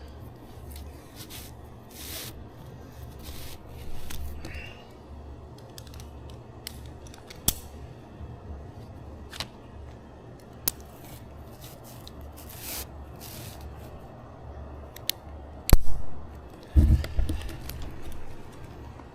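Rope and climbing gear being handled in a tree while setting up rigging: irregular rustles, swishes and small clicks, with a few louder thumps about 16 seconds in.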